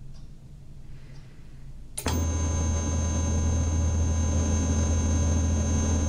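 A steady electronic drone from a television switches on suddenly about two seconds in: a strong low hum with a thin high whine over it, the signal tone that opens a sci-fi TV episode.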